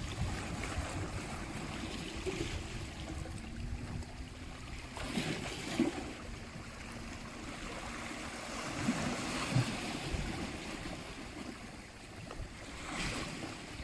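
Sea waves washing in and drawing back, swelling three times, about five, nine and thirteen seconds in.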